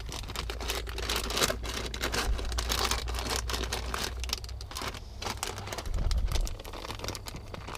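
Plastic bags of soft plastic worms crinkling and rustling as they are rummaged through, over a low steady hum.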